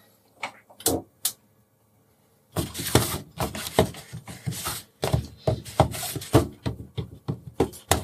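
A fork pressing and spreading soft bread dough flat on a paper plate: a run of quick taps, thunks and scrapes against the plate on the counter, starting after a short silent gap.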